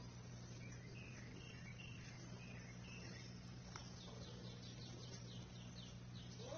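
Faint bird chirps over a steady low hum, with a quick run of chirps about four seconds in.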